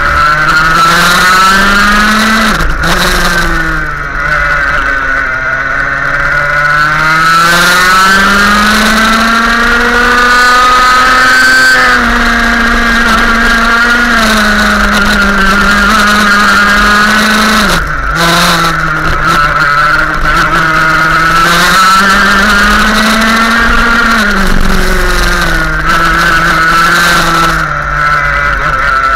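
Go-kart engine heard from on board at racing speed, its pitch climbing steadily on the straights and dropping sharply several times as it slows for corners.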